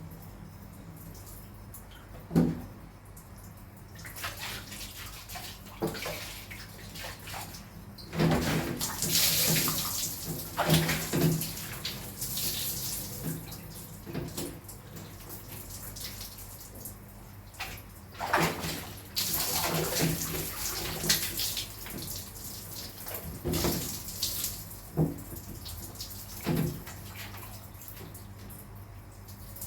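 Water from a shower sprayer hissing in two longer spells as a cat is rinsed during its bath, with short knocks in between.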